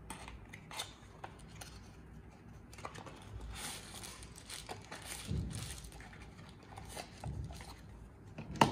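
Paper packaging being handled: tissue wrapping crinkling and rustling as it is pulled from a small cardboard box, with scattered light taps and clicks and a sharper click near the end.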